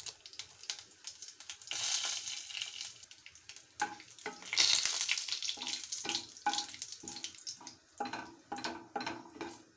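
Cumin seeds and a bay leaf sizzling in hot mustard oil in a nonstick kadhai, the hiss swelling twice. In the second half a wooden spatula stirs them with short, repeated scraping strokes against the pan.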